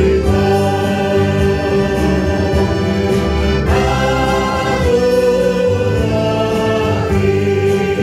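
Church choir singing a hymn, accompanied by accordion, saxophone and guitars, with the chord changing about halfway through.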